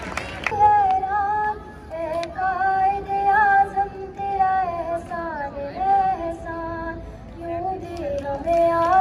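A girl singing a slow melody into a handheld microphone, holding long notes that slide from pitch to pitch.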